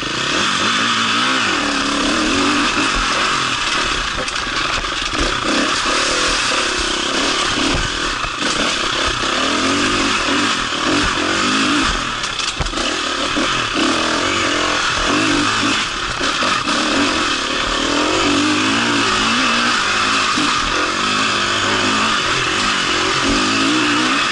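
Enduro motorcycle engine ridden hard along a dirt trail, heard from the rider's position: it revs up and drops back over and over as the rider accelerates and shifts.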